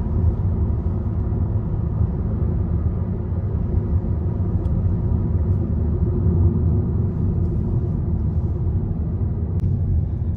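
Steady low rumble of a moving car, engine and tyre noise heard from inside the cabin while driving.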